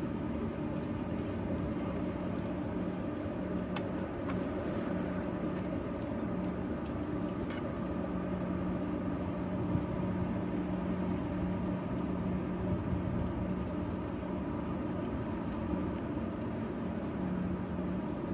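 Steady mechanical drone of a running engine or machine, holding one pitch, with a few faint ticks.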